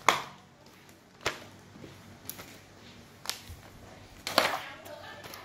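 Schoolbooks and notebooks being stacked and set down on a hard surface: five sharp knocks about a second apart. The first knock is the loudest, and near the end comes a quick double knock.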